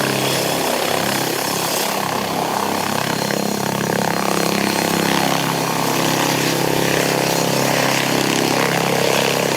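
Boeing CH-47 Chinook tandem-rotor helicopter running, a loud, steady noise of rotors and turbine engines.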